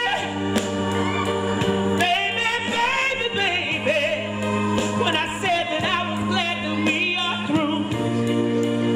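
A woman singing a slow ballad with wide vibrato into a handheld microphone, amplified through a small portable speaker over sustained low accompaniment chords.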